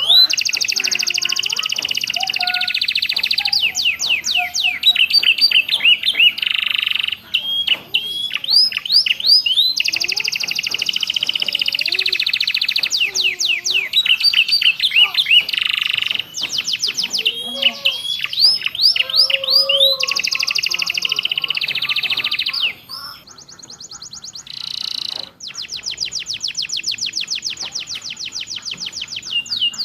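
Canary singing a long, varied song: runs of fast repeated whistled notes alternating with long buzzy rolls. A quieter patch follows, then a fast, even trill of repeated notes.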